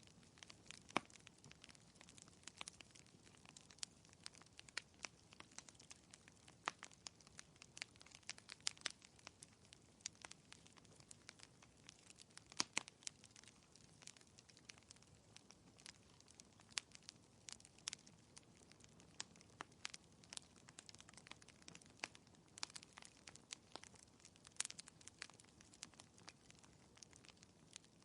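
Faint crackling of a wood fire in a fireplace: irregular small pops and snaps over a soft steady hiss.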